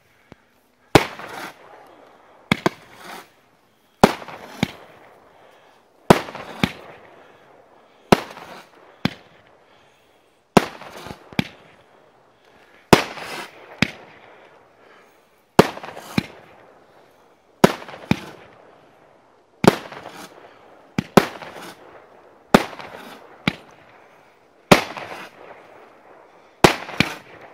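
Brothers "Winner" firework cake firing shots: a sharp bang about every two seconds, most followed about half a second later by a second bang, each dying away in a rumbling echo.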